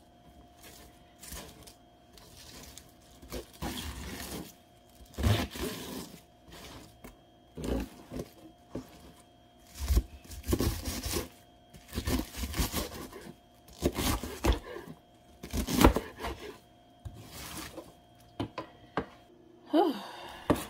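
Knife slicing through a firm head of green cabbage on a plastic cutting board: a run of irregular crunching cuts, each ending in a knock of the blade on the board.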